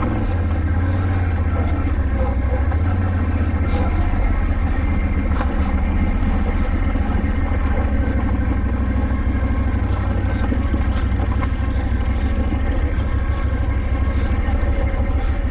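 Can-Am ATV engine running steadily as the quad rides over a rocky dirt trail.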